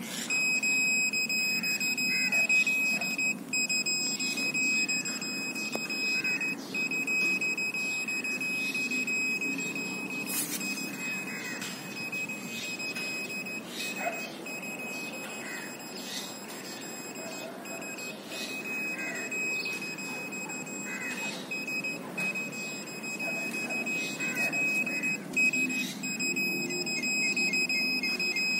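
Satlink WS-6933 satellite finder meter sounding its steady high-pitched beep tone while the dish is aimed, the tone that tells a satellite signal is being received. The tone breaks off briefly a few times and turns into a run of short beeps near the end.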